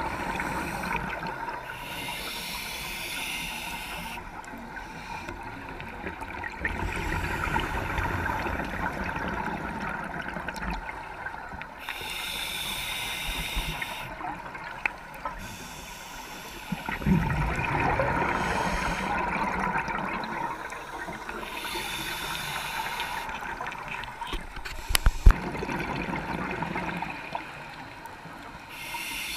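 Scuba regulator breathing underwater: a hiss of inhalation every several seconds, alternating with the gurgling bubbles of exhalation.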